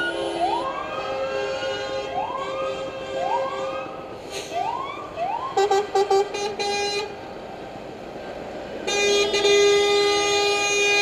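A siren sounding in repeated rising whoops, about one a second, followed by a few short chopped horn blasts. About nine seconds in, a loud multi-tone truck air horn starts and holds a steady chord.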